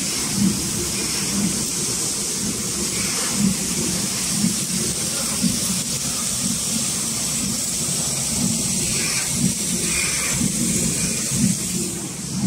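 CHLB CB-300S servo flow-wrapping machine running, a steady mechanical hiss with a low thump about once a second as it cycles through each pack.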